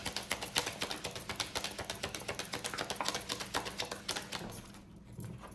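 Tarot deck being shuffled by hand: a rapid run of card flicks and clicks that thins out and stops about four and a half seconds in.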